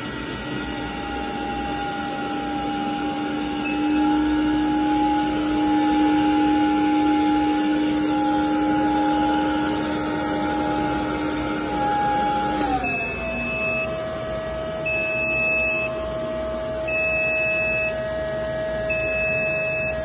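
Window-cleaning robot's suction fan whining steadily while it holds itself on the wall. About 13 seconds in, the whine drops to a lower pitch, and from then on the robot gives a short high beep about every two seconds.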